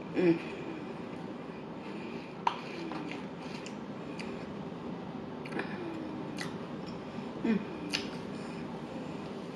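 Close-up eating of fast food: scattered sharp mouth clicks and smacks while chewing, with a few short, falling breathy vocal sounds from the eater, over a steady background hiss.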